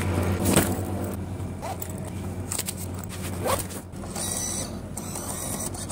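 Banknote acceptor of a payment machine taking in a note, with a couple of mechanical clicks and then a high whir of its feed motor starting about two-thirds of the way in.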